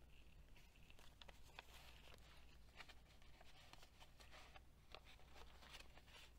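Near silence with faint, scattered rustles and light clicks of paper pages and flaps of a handmade paper journal being turned and handled.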